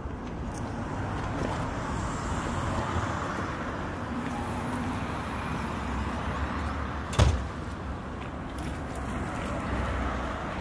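Steady city street noise with vehicle traffic running, and one sharp knock about seven seconds in.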